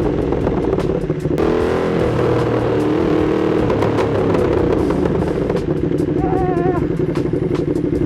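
Ducati Streetfighter V2's V-twin engine through an Austin Racing exhaust, running under way on the road. About a second in the sound briefly dips, then climbs in pitch as the engine pulls again. A short warbling tone is heard near the end.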